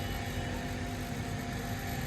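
Steady mechanical drone with a few faint steady hum tones and a low rumble, unchanging throughout.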